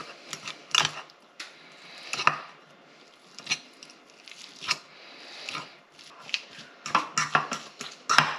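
A metal fork mashing boiled eggs in a white ceramic bowl: about nine sharp, irregular clinks and taps as the tines strike the bowl.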